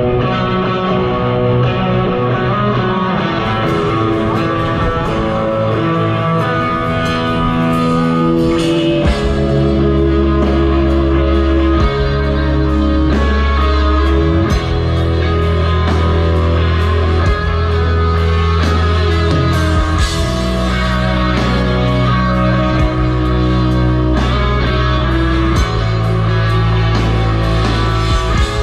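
Live rock band playing amplified electric guitars over drums. The bass end comes in heavy about nine seconds in.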